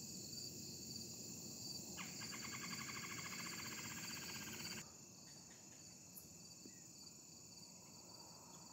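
Evening chorus of crickets and other insects: a steady, high-pitched chirring. From about two seconds in, a second, lower trill of rapid, even pulses joins for about three seconds, then stops abruptly.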